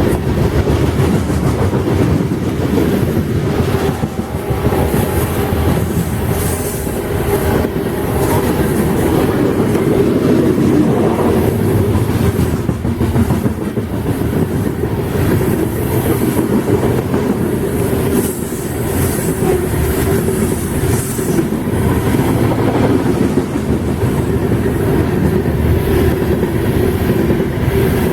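Freight train cars rolling past with a steady heavy rumble, their wheels clacking over the rail joints.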